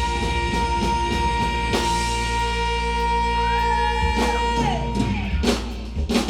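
Live rock band playing: guitars, bass and drum kit, with one long held high note that bends down about four and a half seconds in, and a few drum hits near the end.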